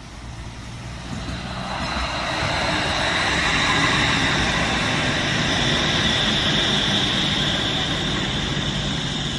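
A vehicle running close by, its noise building over the first few seconds and then holding steady, with a high whine mixed into the rumble.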